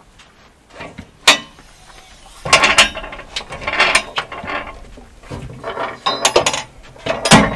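Steel swing-arm spare-tyre carriers on the rear bumper of a Toyota Land Cruiser 70 being unlatched and swung open: a sharp click, then rattling and clanking of latches, hinges and the tyre-laden arm, ending in a heavy clunk near the end.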